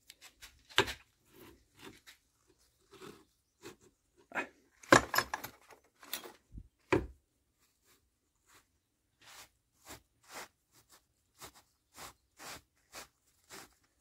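Worn 2008 Jeep Compass wheel bearing turned by hand, giving irregular crunchy clicks and scrapes, with louder ones about a second in and around five and seven seconds in. The rough rotation is the sign that the bearing is shot.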